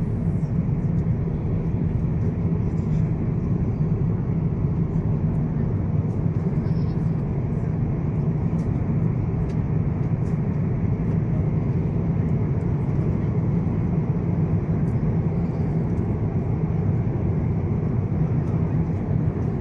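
Steady low rumble of air and engine noise inside an Airbus A350-900's passenger cabin, unchanging throughout.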